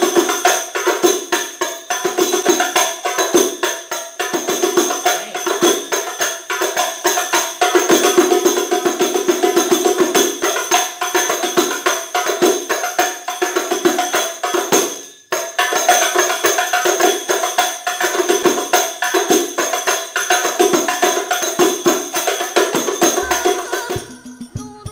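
Two hadroh frame drums (rebana) played by hand together in a fast, steady rhythm, the drum heads struck with open hands while metal jingles ring over the beat. The playing breaks off briefly about two-thirds of the way through, resumes, and stops just before the end.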